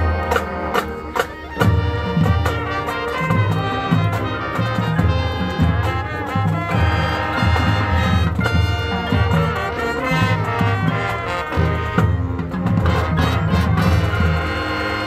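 Marching band playing: brass instruments carrying held, stacked notes over a low bass line, with sharp drum hits throughout.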